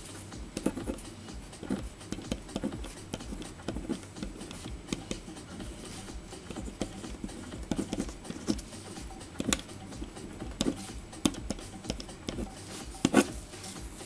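Niteye K1 tactical pen writing on a sheet of wet paper on a wooden desk: a string of short, irregular scratches and taps as the tip forms letters, with a few sharper clicks near the end.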